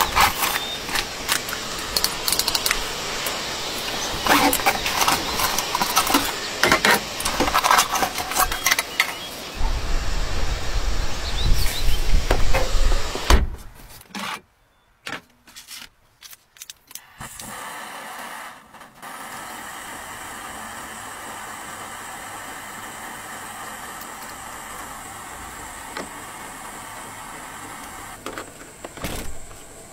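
Camping gear being handled and stowed in a car seat-back organizer: repeated clicks, clinks and rattles, with a low rumble near the middle. After a brief near-silent gap, only a faint steady hiss in the quiet car cabin remains.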